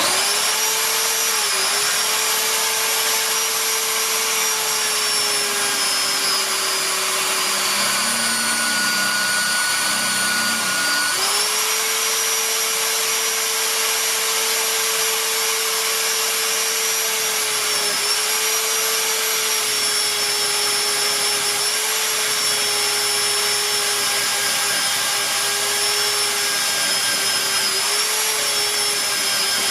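Electric polisher motor running steadily with a whine, polishing a forged knife blade with coarse compound. Its pitch sags for a few seconds about a third of the way in, then recovers, with a few shorter dips later.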